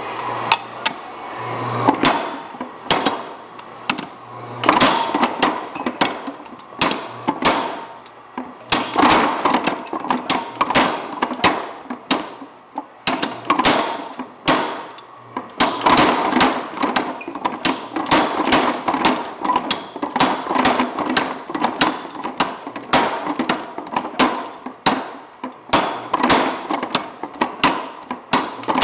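Little Giant power hammer striking hot steel in runs of rapid blows with short pauses between, drawing out the shank of a hardie tool.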